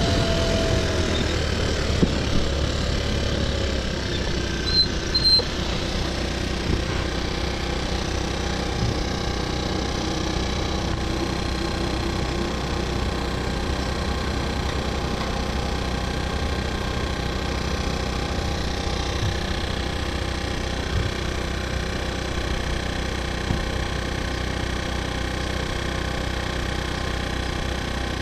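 Car engine idling steadily, heard from inside the cabin. Its pitch falls as the revs settle in the first couple of seconds, and a few light clicks come a few seconds in.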